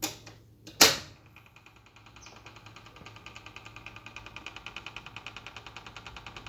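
Whirlpool washing machine: two clicks as it is set going, then a fast, even ticking of about eight beats a second that slowly grows louder while the drum does not spin. The owner suspects the motor may be sticking.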